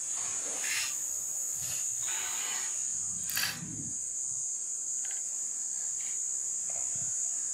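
Insects droning in a steady, high-pitched chorus, with a few brief soft noises over it, the clearest about three and a half seconds in.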